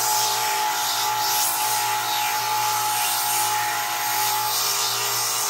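Belt grinder with a 40-grit zirconia belt grinding a steel knife blade: a steady motor hum and high whine under the hiss of the belt cutting metal. The whine stops about four and a half seconds in while the grinding hiss goes on.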